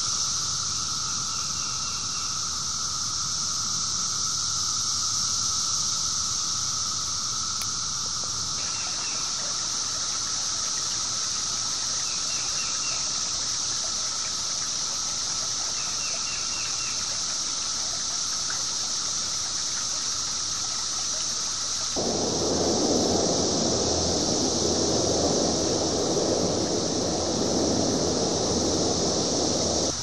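Dense, steady chorus of 17-year periodical cicadas, a high continuous droning hiss with a lower steady hum beneath it. About 22 seconds in, a louder, lower rushing noise joins it.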